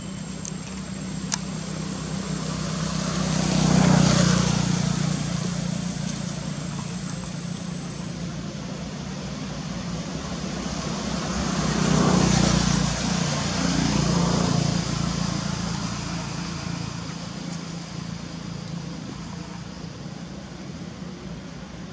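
Road traffic: vehicles passing, with the sound swelling and fading about four seconds in and again around twelve to fourteen seconds, over a steady low hum.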